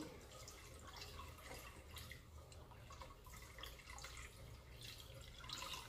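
Faint liquid pouring and dripping as ethanol is poured into a bowl of soap-base mixture of tallow, soybean oil and lye, over a faint low hum.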